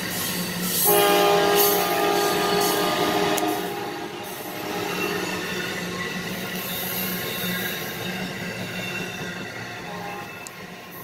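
A horn sounding a long chord of several steady notes for about four seconds, loudest at the start, over a steady low hum.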